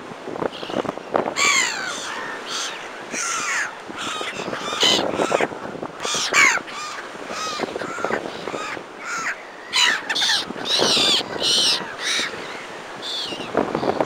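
A flock of gulls, black-headed gulls among them, calling again and again: many short calls that slide in pitch and overlap each other throughout.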